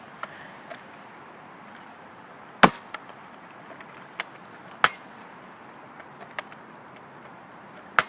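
Nerf foam-dart blaster being fired: three sharp snaps a few seconds apart, the first nearly three seconds in and the last at the very end, with fainter clicks between.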